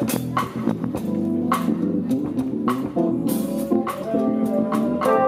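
Jazz band music: plucked string instruments playing sustained pitched notes over a drum kit, with cymbal strokes every second or so.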